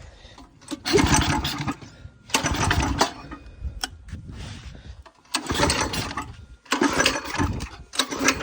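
Small go-kart engine being pull-started about five times in a row. Each pull gives a short burst of cranking and coughing under a second long, but it does not catch and run on the freshly fitted 30 mm carburetor.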